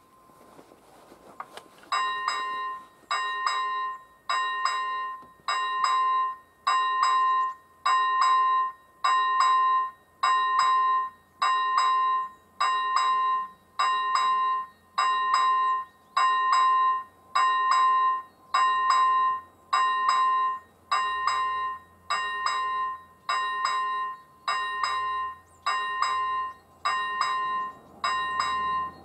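Level crossing warning bell starting about two seconds in and ringing in even strokes, about one a second, each a clear ringing tone: the crossing has been activated for an approaching train.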